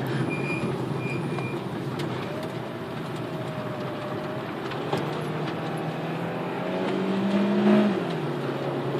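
Citroën C5 driving, heard from inside the cabin: a steady rumble of road and tyre noise, with the engine note climbing for a couple of seconds and then falling away suddenly near the end.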